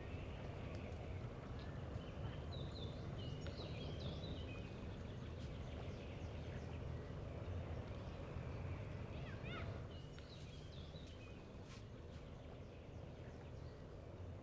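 Outdoor ambience: small birds chirping and twittering in short bursts over a steady low rumble, the chirps gathered in two spells, the rumble easing a little after the second.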